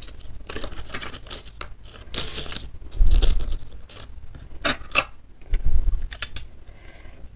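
Metal spoon and fork clinking against each other several times in the second half, sharp metallic clicks. Earlier, a few rustling handling noises and a low thump about three seconds in.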